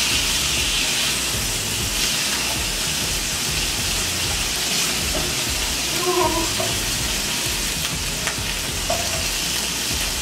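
Fish fillets sizzling in hot oil in a frying pan, a steady hiss, with a few light clicks of metal tongs and a spatula against the pan as the fish is turned.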